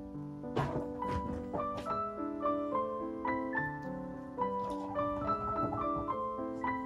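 Background piano music: a light melody of short, evenly paced notes.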